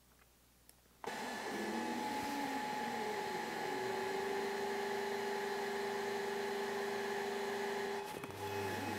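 Longer Ray5 20W diode laser engraver starting up about a second in and cutting plywood: a steady hum with a whine from its cooling fan and stepper motors, the tones shifting as the head moves. The sound breaks briefly about eight seconds in and carries on with a changed pitch.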